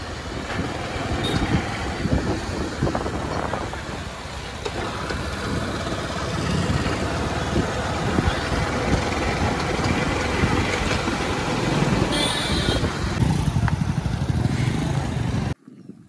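Motorcycle under way on a road, heard from the rider's seat: engine running amid steady road noise. It cuts off suddenly near the end.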